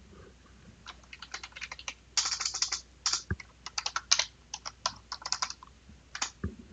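Typing on a computer keyboard: an irregular run of key clicks, with a quick flurry of keystrokes about two seconds in.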